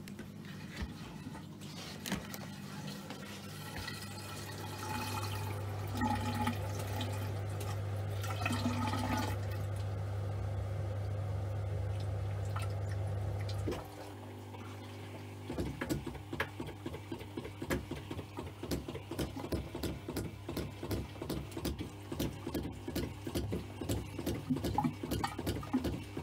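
Dishwasher starting up: a steady low hum with water filling, which stops about fourteen seconds in. Shortly after, a rapid run of knocks sounds through the plumbing: water hammer from the dishwasher's inlet solenoid valve shutting quickly and sending shock waves through the house's pipework.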